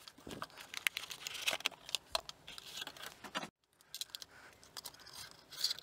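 Packaging being handled: a cardboard sleeve slid off a box and a clear plastic clamshell and bag opened, giving scattered rustles, crinkles and light clicks, with a brief break about three and a half seconds in.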